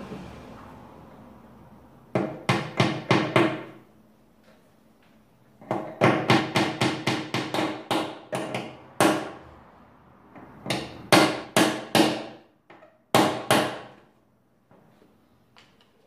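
A hammer tapping wooden wedges into the glued joints of a Windsor chair, locking the tenons. The taps come in four quick runs of about three a second, with short pauses between, and the longest run has about a dozen blows.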